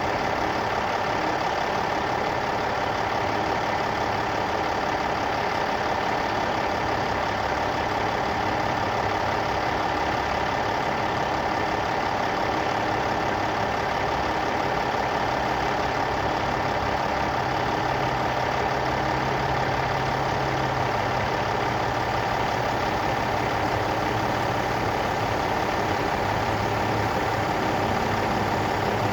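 Heavy diesel earthmoving machinery running steadily, an even engine drone with a steady whine over it.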